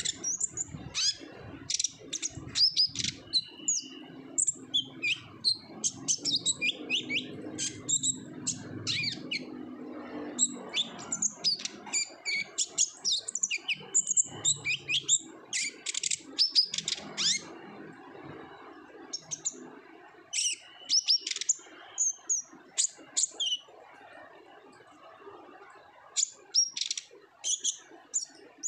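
Kolibri ninja sunbird singing energetically: a fast, busy run of sharp, high chirps and short trills with brief pauses. A low hum sits underneath in the first half.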